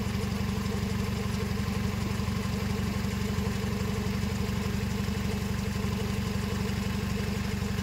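Honda Civic engine idling steadily, a low even rumble.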